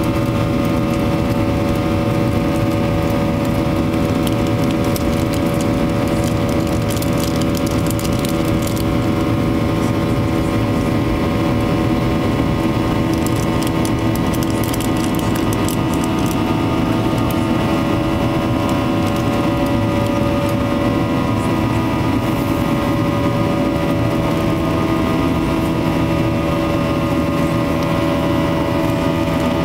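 Boeing 737-800's CFM56-7B turbofan engines heard from inside the cabin during the climb after take-off: a loud, steady drone with several steady whining tones laid over it.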